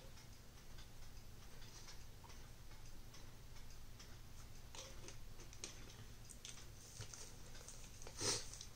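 Faint scattered clicks and light handling of a plastic drink bottle and its screw cap. About eight seconds in there is one short, louder sound.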